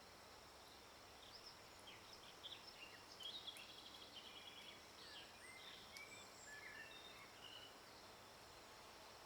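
Faint nature ambience: scattered bird chirps and a short trill over a steady high insect hiss.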